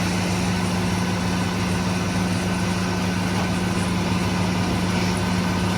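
Heavy diesel engine of a forestry machine running at a steady speed: a constant low hum with no change in pitch.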